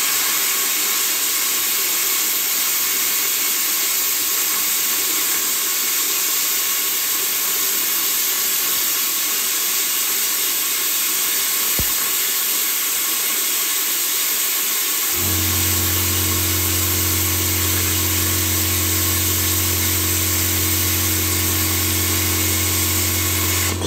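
Ideal Praktik 40 plasma cutter cutting 3 mm stainless steel: a steady hiss of the air-plasma jet. About fifteen seconds in, a steady low hum joins it. Both cut off suddenly at the end.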